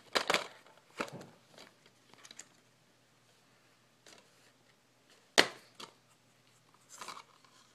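Plastic DVD case being handled, with scattered clicks and rustles and one sharp snap about five seconds in as the case is opened.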